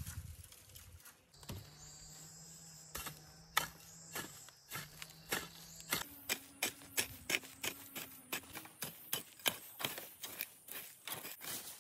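A long-handled hoe chopping and scraping into dry, weedy soil. The strokes come a few at a time at first, then settle into a steady run of about two a second from about six seconds in. At the very start, dry brush stalks rustle as they are pulled.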